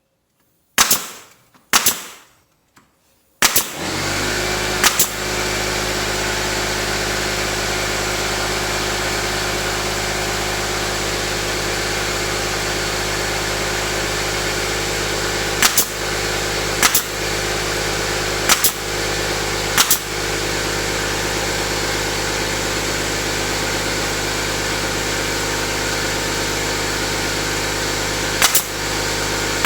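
Two sharp shots, then a motor starts about three and a half seconds in and runs steadily. Single sharp shots ring out over it every so often.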